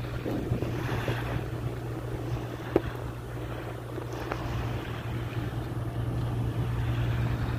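Steady low hum of ship engines as a tugboat manoeuvres a tanker toward a jetty, with a single sharp knock just under three seconds in.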